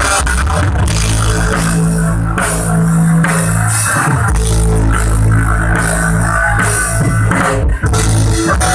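Rock band playing an instrumental passage with drum kit, cymbals and guitars, loud and steady, with no singing.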